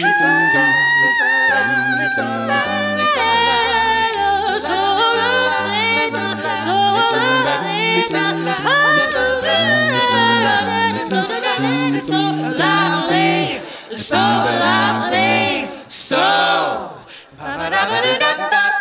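Mixed-voice a cappella quartet singing in close harmony over a low, stepping sung bass line, with sharp clicks in the rhythm; the song ends at the very end.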